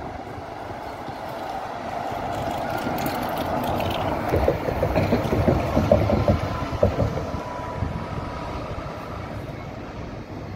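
A city bus driving past close by, its running noise swelling to a peak with a string of rattling clicks and a steady whine, then fading as it moves away.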